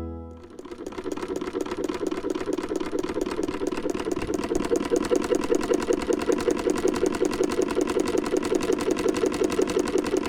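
Sewing machine running steadily at speed, its needle stitching in a rapid even ticking over a motor hum; it starts about half a second in.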